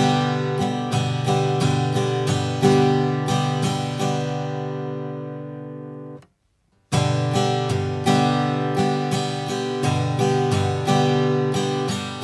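Steel-string acoustic guitar strumming a G chord in a down-up-down-up-up-down-up pattern, about three strokes a second, and letting the chord ring out. The sound breaks off for about half a second around six seconds in, then the same strumming starts again and rings out near the end.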